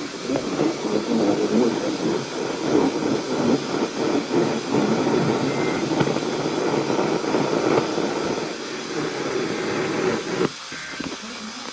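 Radio static from a receiver: a steady rushing noise with many small crackles, which drops off abruptly about ten and a half seconds in.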